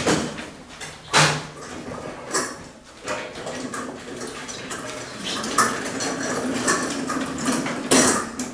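Wheeled trolley rattling and clattering as it is pushed across a hard floor, with several sharp knocks.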